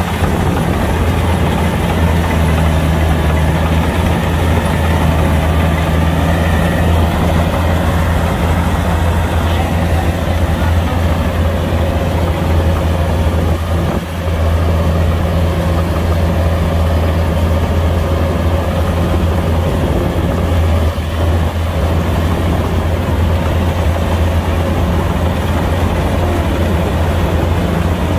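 Kubota combine harvester's diesel engine running steadily with a low, even hum, dipping briefly about halfway through.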